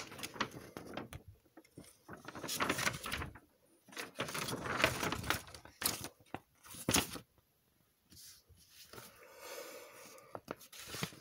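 Handling of plastic bags, plastic parts and the cardboard kit box, with rustling, scraping and small knocks and clicks coming in bursts, broken by two brief pauses.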